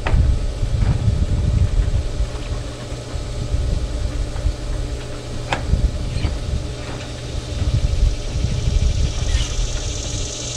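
Above-ground pool pump motor running with a steady hum, under an uneven low rumble and a few sharp knocks.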